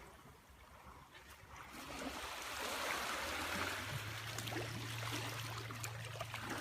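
Water trickling and splashing, growing louder after the first second or so, with a steady low hum setting in about four seconds in.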